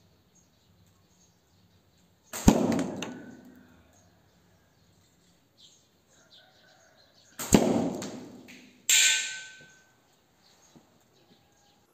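Slingshot shots at a target rig: two sharp impacts about five seconds apart, each ringing away over a second or so. About a second after the second impact comes a short hissing burst.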